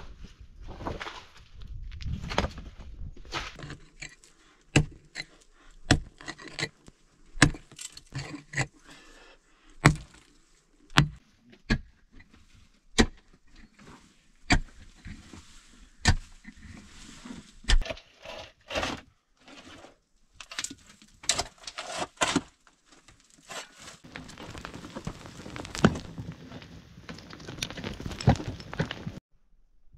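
Digging in stony ground: a hand tool strikes the rocky dirt and loose stones in irregular sharp blows, about one a second. Later comes a longer stretch of scraping and of dirt and gravel being thrown and scattered, which stops suddenly near the end.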